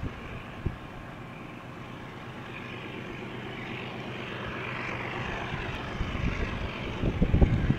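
A distant engine drone that swells slightly toward the middle, with wind buffeting the microphone near the end.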